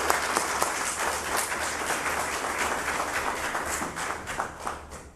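Audience applauding, with many hands clapping, dying away near the end.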